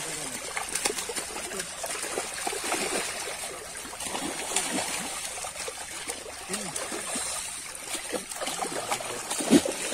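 Water splashing and churning in a steady patter of small splashes as a dense mass of catfish thrashes in the shallows inside a fishing net.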